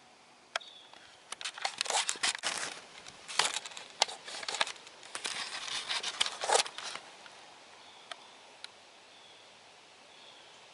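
Close rustling and crinkling handling noise in clusters over the first seven seconds as the camera is moved and turned, then a few faint scattered clicks. Faint short high chirps sound in the background.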